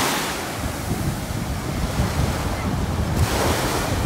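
Small sea waves breaking and washing up over a sandy shore, a surge of foaming hiss at the start and another near the end. Wind buffets the microphone with a low rumble.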